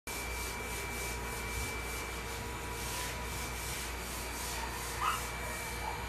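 Robot vacuum cleaner running: a steady motor whir with a few constant whining tones and the hiss of its brushes sweeping over a tiled floor.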